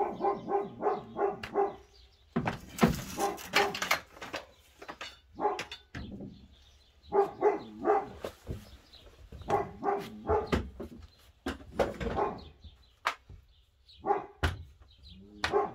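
A dog barking in quick runs of short, repeated barks, several bouts with pauses between. Rustling clatter about two to four seconds in, and a couple of sharp knocks near the end.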